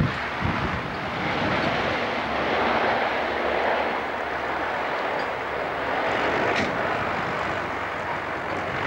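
A de Havilland Canada Dash 7 airliner's four turboprop engines and propellers drone steadily as it makes a low, slow, nose-high pass.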